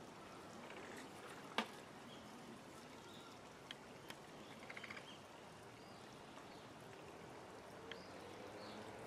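Quiet outdoor ambience with a sharp click about a second and a half in, a few fainter ticks, and a quick run of four or five clicks near the middle.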